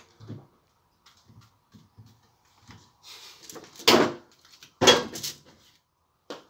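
Handling sounds as bananas are peeled and broken into a glass blender jar: faint small taps, then two short, louder knocks or rustles about four and five seconds in.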